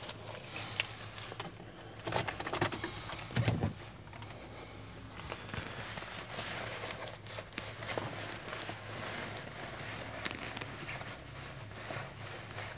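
Handling noises inside a parked car with the engine off: a few knocks about two and three and a half seconds in, and small clicks and rustles over a faint low steady hum.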